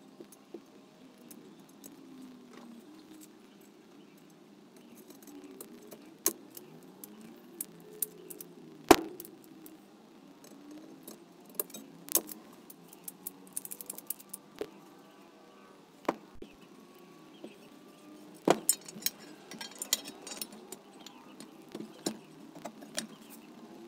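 Hand pop-rivet gun being squeezed, with sharp metallic snaps as the rivets set and their mandrels break, scattered through amid light clinks of the loose rivets and steel cowl parts being handled.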